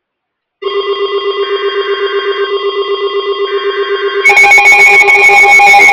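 Weather alert radio receiver sounding its alarm: a loud electronic tone pulsing about six times a second, starting about half a second in. About four seconds in, a second, louder alarm tone at a different pitch joins and takes over.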